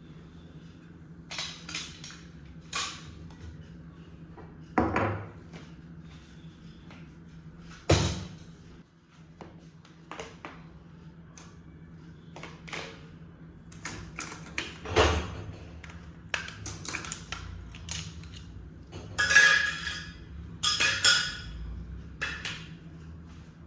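Kitchen utensils and dishes clattering and clinking in irregular knocks, over a steady low hum.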